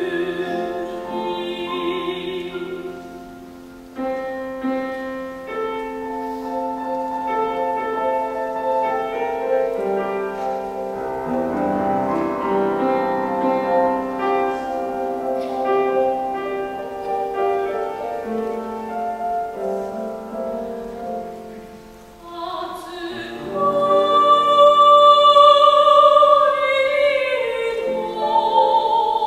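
A soprano sings a Japanese art song with wide vibrato, accompanied by a Steinway grand piano. The voice stops about three seconds in, and the piano plays a solo interlude. The voice comes back about three-quarters of the way through and swells to its loudest near the end.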